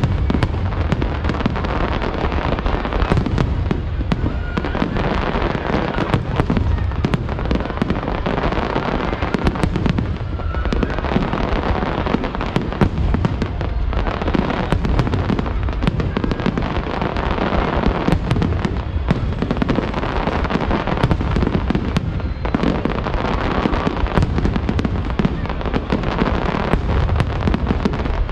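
Aerial fireworks display: a dense, unbroken barrage of shell bursts, bangs and crackling.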